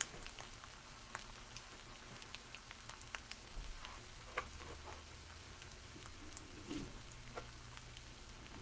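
Eggs frying gently in butter in a cast iron pie plate over low-medium heat: a faint, soft sizzle with scattered small crackles and pops.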